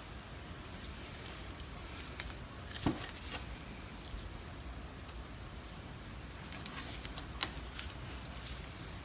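Faint, scattered clicks and light metal taps as a brake caliper bracket and its steel pad clips are handled, a few of them sharper around the middle and again later on.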